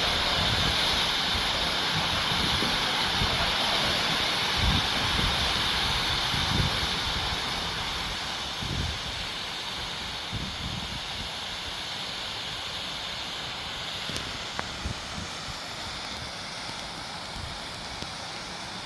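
Waterfall water rushing in a steady hiss that slowly fades, with gusts of wind buffeting the microphone.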